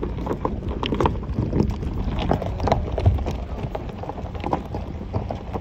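A vehicle driving over a rough gravel track: a steady low rumble with many irregular knocks and rattles as it jolts over the stones.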